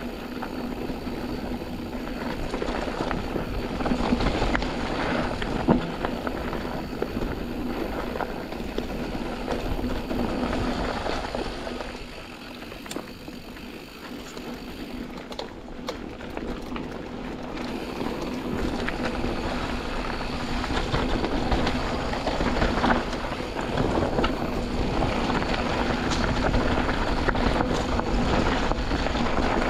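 Canyon Spectral AL 6.0 mountain bike riding down a dirt trail, picked up by a chest-mounted camera: steady tyre noise over dirt and stones with many small rattles and knocks from the bike. The noise drops for a few seconds in the middle and then builds again.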